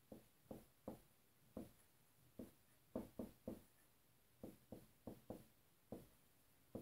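Dry-erase marker writing on a whiteboard: a series of short, faint, irregular strokes and taps, with silence between them.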